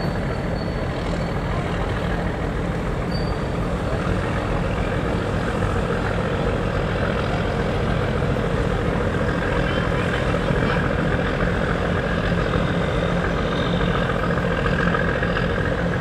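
Fishing boat's diesel engine running steadily, a dense low rumble that holds an even level throughout.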